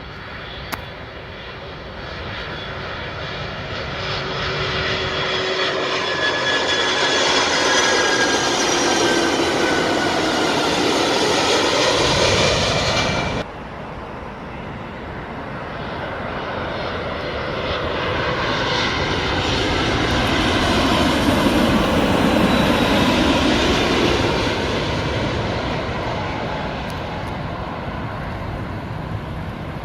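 Jet airliners passing low overhead on landing approach, the engine noise swelling to a loud peak with whining tones that fall in pitch. Two passes: the first cuts off abruptly about halfway through, and the second builds to its loudest a little later before fading.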